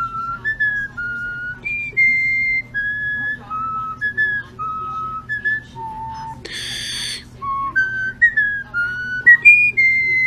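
A whistled tune: a string of clear held notes stepping up and down in pitch, each lasting about half a second. About six and a half seconds in, a short harsh rasping noise cuts in.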